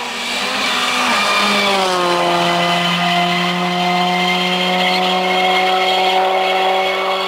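Skoda Fabia R5 rally car passing at speed: its engine note drops in pitch as it goes by about a second in, then holds one steady note as it drives away, easing off slightly near the end.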